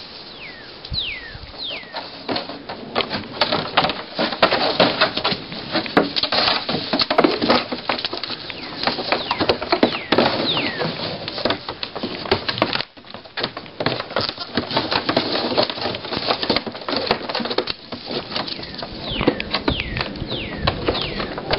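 Pygmy goat kids' hooves clattering on wooden boards, a dense run of quick clicks and knocks. A bird's falling whistled calls come through near the start and again near the end.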